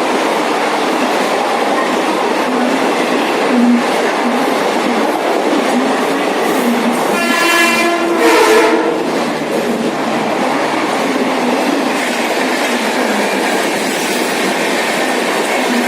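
A train passing with steady loud rolling noise and wheels clattering over rail joints. About halfway through, an Indian Railways WAG-9H electric locomotive's air horn sounds once for about two seconds.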